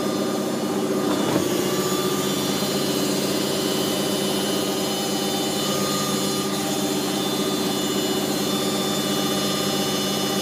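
Candy GO DF800 washing machine on its spin cycle, the drum and motor running steadily at speed with a regular wobble in the hum, from a load the owner calls unbalanced.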